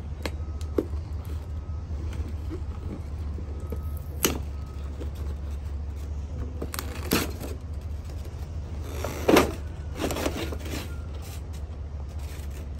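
Cardboard toy box being handled and pulled open: scattered short knocks and clicks, and a louder rustling burst about nine seconds in, over a steady low rumble.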